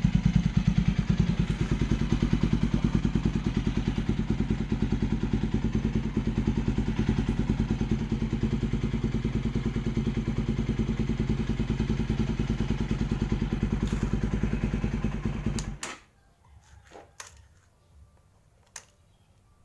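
Motorcycle with an aftermarket exhaust pipe idling steadily with an even exhaust pulse, then switched off about sixteen seconds in, leaving only a few faint clicks.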